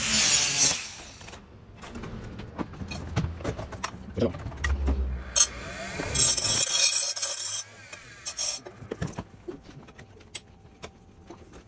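Angle grinder cutting metal for about a second, then clinks and knocks of hand tools and parts being handled, then a grinding wheel grinding metal for about two seconds, followed by more light tool clanks.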